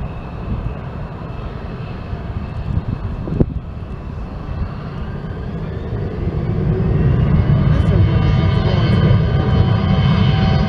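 Twin turbofan engines of an American Eagle Embraer E-Jet (GE CF34-8E) running on the runway. From about five seconds in, a rising whine builds and the sound grows louder as the engines spool up toward takeoff power. A single short knock about three and a half seconds in.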